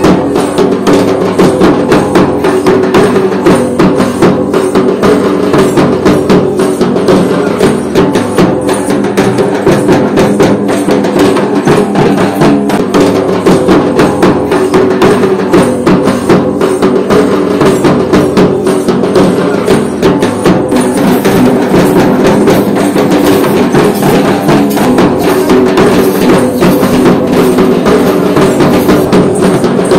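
Loud, rapid drumming with sharp stick strokes accompanying a Hazra dance, over steady sustained musical tones.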